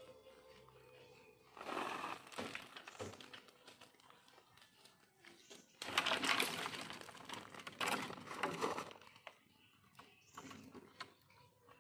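Rustling and clattering in two bursts, a short one early and a longer, louder one about six seconds in: a chained long-tailed macaque scrabbling on a wooden plank and knocking over a plastic bowl, scattering peanuts.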